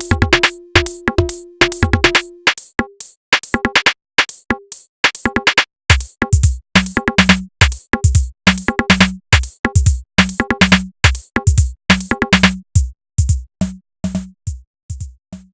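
Electronic drum-machine beat of rapid, sharp percussive hits. A held synth note sounds under it for the first couple of seconds, then a deep kick and a bass note come in about six seconds in. The hits thin out near the end.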